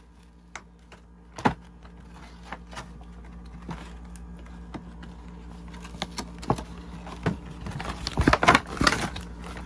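Toy packaging being handled and opened: a cardboard box and its card insert and plastic wrappers giving scattered clicks and rustles, with a sharp knock about a second and a half in and a burst of louder rustling and knocks near the end.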